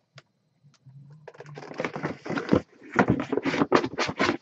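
Cardboard box and its packaging being handled and rummaged through: a dense, irregular run of rustles and clicks that starts about a second in and grows busier.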